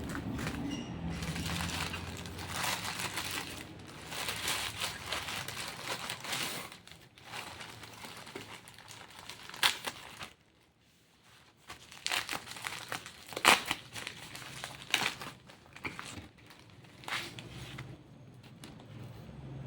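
Crinkly packaging rustling and crackling as a parcel is handled and unwrapped by hand, in irregular bursts with a short pause about halfway through and a few sharp crackles.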